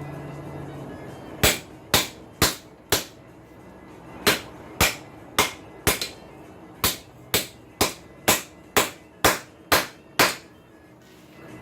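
Hand hammer striking hot steel on an anvil, forging a farrier's rasp into a curving snake: four blows about half a second apart, a short pause, then a steady run of about a dozen blows at roughly two a second.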